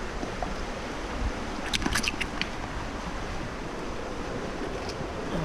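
Steady rush of a fast, shallow river running over rocks. About two seconds in comes a quick run of light metallic clinks, bottle caps on a neodymium fishing magnet being handled.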